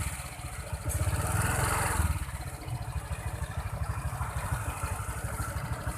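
Honda Vario 125 scooter's single-cylinder engine and CVT running, revved briefly about a second in and then settling back to idle. The creaking 'kretek-kretek' is gone now that the worn, loose rubber at the front of the CVT has been replaced.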